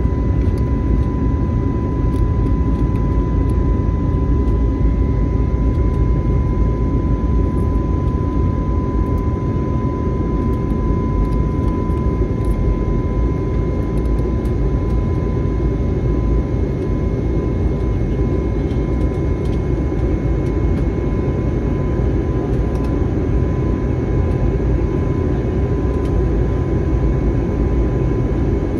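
Airliner cabin noise: the steady roar of the jet engines and airflow, with a steady high whine over it.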